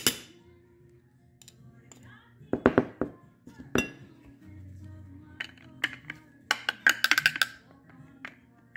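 Screwdriver tip clicking and scraping against the metal gear housing and plastic gear of a Ford power window motor while picking out broken plastic torque-pin fragments. The clicks come in short clusters, a couple about two and a half seconds in, then a longer run of rapid clicks from about five and a half to seven and a half seconds.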